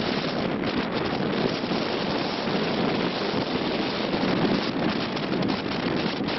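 Wind blowing steadily across the microphone aboard a catamaran at sea, a continuous rushing noise mixed with the wash of the water.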